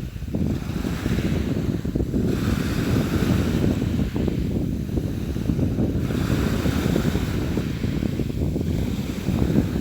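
Sea surf: a continuous rush of waves washing in, swelling every few seconds, over a steady low rumble.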